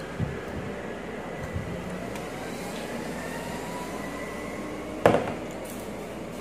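A sauce bottle set down on the table with one sharp knock about five seconds in, after a couple of softer knocks near the start, over a steady background hum with a faint, slowly rising whine.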